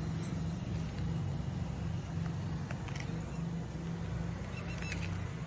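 Outdoor ambience: a steady low rumble, with a few faint, short high chirps about three and five seconds in.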